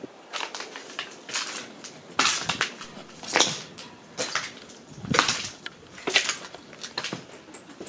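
Footsteps over broken debris on a floor: a slow, uneven series of steps, about one a second.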